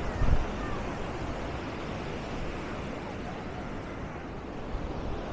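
Surf breaking and washing up a sandy beach in rough, wavy sea: a steady rushing wash. Wind buffets the microphone briefly near the start.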